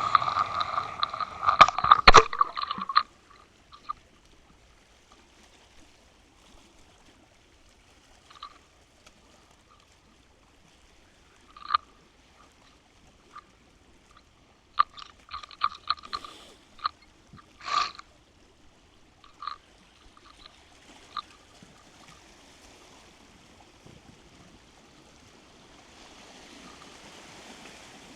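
Water gurgling and trickling around a Water Wolf underwater fishing-line camera as it is pulled through the water: a dense gurgling burst in the first few seconds, then mostly quiet with scattered short splashy bursts later on.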